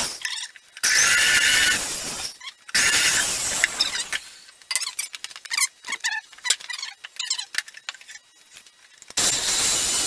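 Handheld electric drill boring into cedar in several short runs, the bit squealing in the wood, with scattered clicks and crackles in between and a steady run starting near the end.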